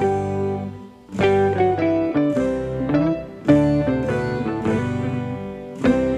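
Background music: a plucked guitar tune played in short phrases with brief pauses between them.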